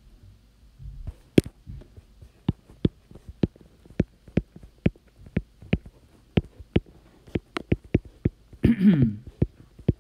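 Stylus tip tapping on a tablet's glass screen during handwriting: a quick, irregular run of sharp clicks, about two or three a second.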